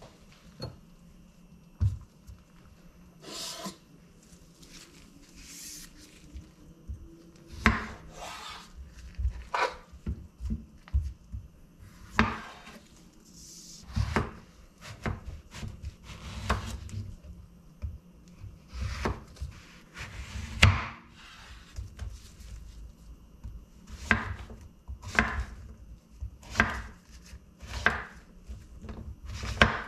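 A chef's knife cutting a zucchini on a bamboo cutting board: the blade knocks on the wood at irregular intervals, with soft rubbing of handling in between. The knocks come thicker in the second half as the zucchini is chopped into chunks.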